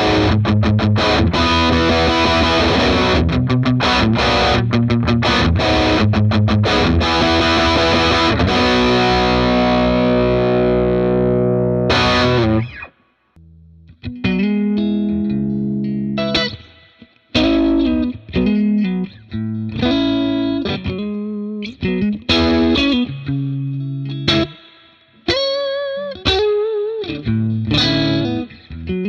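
Electric guitar played through a Dr. Z Maz 38 Senior Reverb 2x12 combo amp with a distorted tone. About the first twelve seconds are fast rhythmic chording that ends on a ringing chord and cuts off suddenly. Then comes a lead line of single notes with bends and short pauses.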